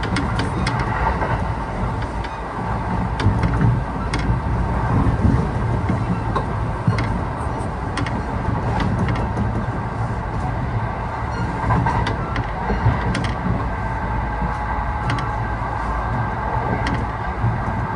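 Running noise of a Kintetsu 1620 series electric train at speed, heard from inside the carriage. A steady low rumble is overlaid by irregular sharp clicks from the wheels over rail joints and a faint steady whine.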